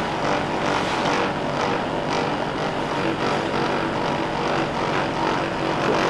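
Handheld electric massager running steadily, a continuous motor hum.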